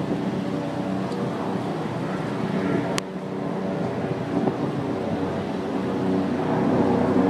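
Steady low drone of a ship's engines heard across the river, with a single sharp click about three seconds in.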